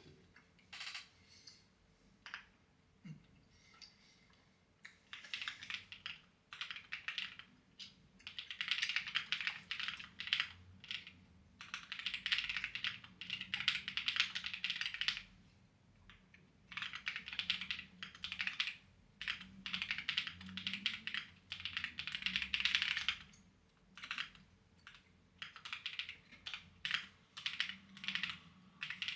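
Clacky computer keyboard being typed on in bursts of a few seconds with short pauses between, after a few scattered keystrokes in the first seconds.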